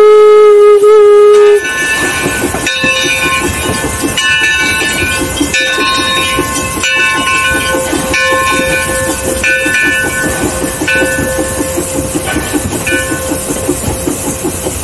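Steam whistle of a Mason Bogie 0-6-4T tank locomotive holding one long blast that cuts off about a second and a half in. Then the locomotive running, heard from its cab: a fast even beat under a hiss, with high ringing squeals that come and go.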